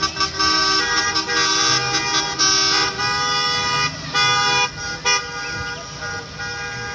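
School bus horn honking in several long blasts, over the low running of the bus's engine.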